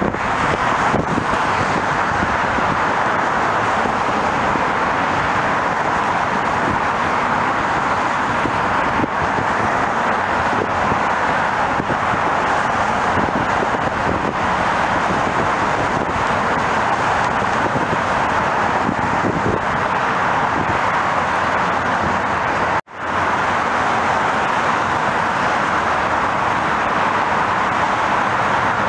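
Steady roar of jet airliner engines: a regional jet on the runway, then a Boeing 737 climbing out. The sound drops out for a moment about 23 seconds in, where the recording is cut.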